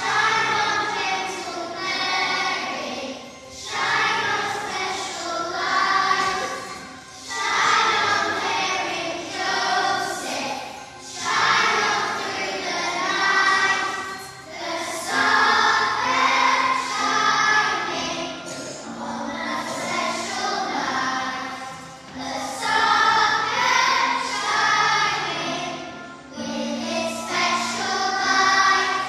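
Children singing a song together as a choir, phrase after phrase, over instrumental accompaniment with steady held low notes.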